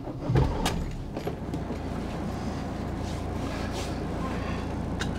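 Van engine starting about a third of a second in and then idling with a steady low rumble, heard from inside the cab. There are a few sharp clicks near the start.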